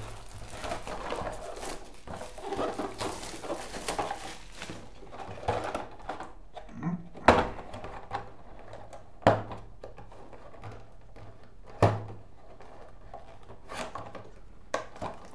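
A cardboard game box being opened and handled. Packaging rustles and scrapes for about five seconds, then a few sharp knocks follow as the box or its contents are set down on the desk.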